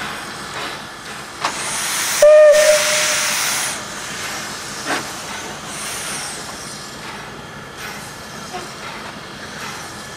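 ČSD class 433.0 steam tank locomotive hissing steam from its cylinder drain cocks. About two seconds in it gives one short whistle toot over a loud rush of steam, and another swell of steam hiss comes around six seconds.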